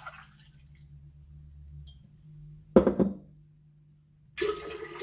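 A glass is set down on the worktop with a single sharp knock and a short ring, about three seconds in. Near the end, water starts pouring, with a slowly rising tone as the vessel fills.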